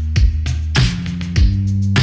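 Background music with a steady beat: sustained bass notes under drum hits about every 0.6 seconds, the bass moving to a new note about a second and a half in.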